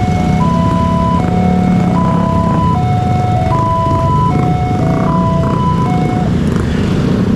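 Electronic railway level-crossing warning bell sounding a repeating high-low chime, each note held about two-thirds of a second, that stops about six seconds in. Under it is the continuous running of many motorcycle engines pulling away across the tracks.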